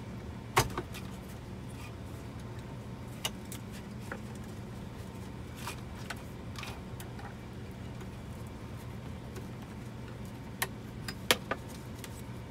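Plastic wiring-harness connectors being unplugged from a GM radio module behind the dash screen, heard as sharp clicks and small rattles. There is a loud click about half a second in, a few scattered ones after it, and a cluster of clicks near the end, all over a steady low hum.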